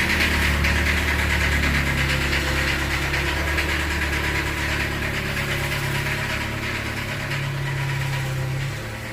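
Ranger's engine idling steadily with a knocking tick, which the owner takes for a lifter tick.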